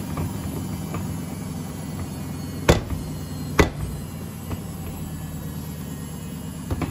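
Samsung WF80F5E2W4W front-loading washing machine running in service mode, its drum turning with water and laundry inside and a steady low hum. Two sharp knocks come a little under a second apart, about a third of the way in, and a fainter one comes near the end.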